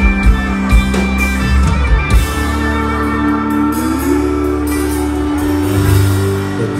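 Live country band playing an instrumental intro: acoustic and electric guitars over a drum kit. Held notes slide up in pitch about halfway through, with drum hits in the first couple of seconds.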